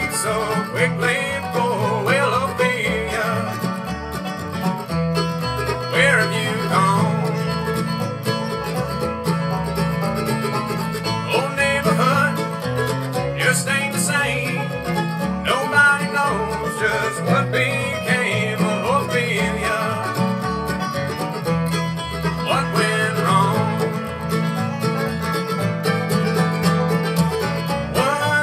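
Bluegrass band playing live on banjo, mandolin, acoustic guitar and upright bass, with fast picked notes over a steady bass line.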